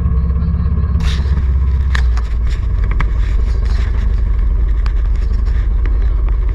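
Motorcycle engine running steadily with a low rumble. From about a second in, repeated scraping and rubbing on the microphone as the camera is covered and handled.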